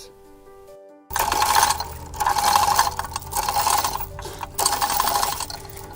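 Hand ratchet being worked in about four strokes. Each stroke is a rasping run of rapid clicks lasting under a second, with short pauses between. It is tensioning the rig that lifts the stone.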